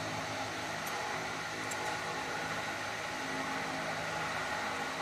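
Steady mechanical hum and hiss with a few faint light clicks, about one and two seconds in.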